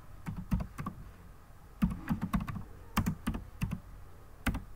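Typing on a computer keyboard: keystrokes clicking in short, uneven bursts with pauses between them.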